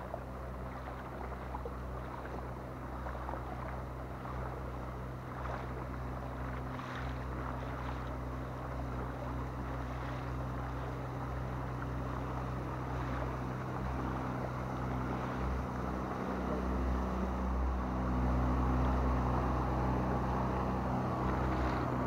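A boat under way on open water: a steady low mechanical hum with the wash and slosh of water around the hull, growing somewhat louder near the end.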